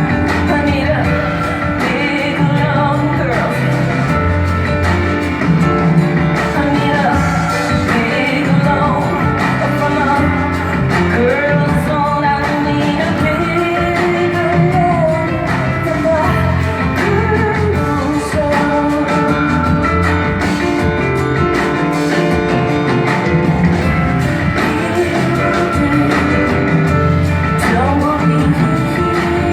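A woman singing live with a band, over a steady, repeating beat.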